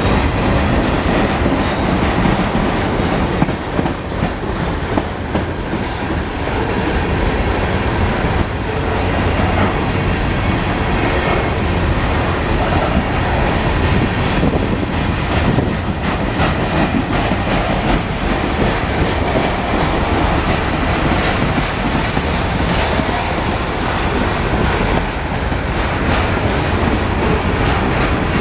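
Freight cars of a long manifest train rolling past, the steel wheels clattering over the rail joints in a steady, continuous din.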